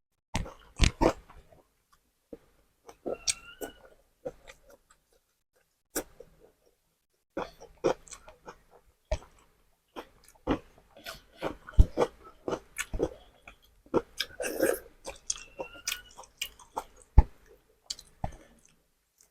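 Close-up chewing and mouth sounds of someone eating beef tapa, with irregular sharp clicks and taps scattered through.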